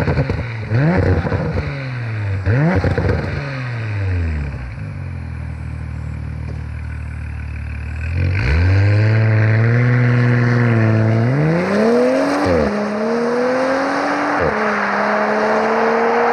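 Porsche Macan S (95B.2) 3.0-litre single-turbo V6 through a Remus axle-back exhaust with cross-over pipe, valves left open. It gives several quick revs at a standstill, settles to a steady idle, then pulls away hard about eight seconds in, the pitch climbing and dropping twice as it shifts up.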